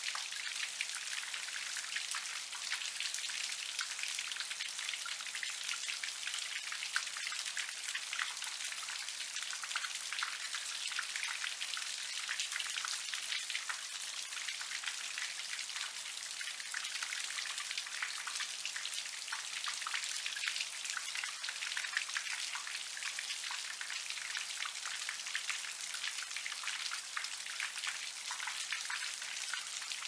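Light rain: a steady, dense patter of many small drops.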